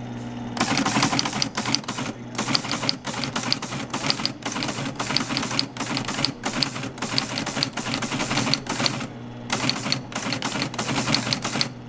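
ASR-33 Teletype typing a message in local mode with its paper tape punch on: rapid, uneven clattering of the keys, print mechanism and punch over the steady hum of its running motor. There is a brief pause in the clatter about nine seconds in.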